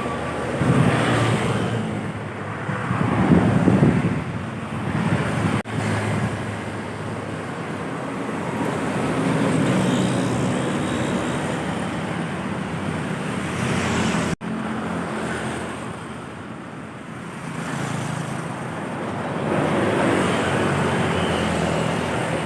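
Road traffic of large trucks and buses driving past, engines and tyres swelling and fading as they pass. The sound breaks off suddenly twice, at edit cuts between clips.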